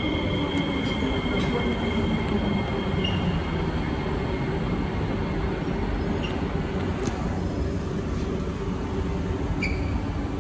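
Kawasaki–CSR Sifang C151A metro train braking to a stop at an underground platform: a continuous rumble of wheels and running gear, with a steady high whine that fades out about three seconds in.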